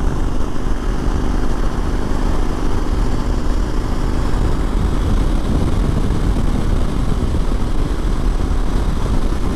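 Suzuki V-Strom 1000 motorcycle cruising at highway speed: a steady engine drone under heavy wind rush over the microphone.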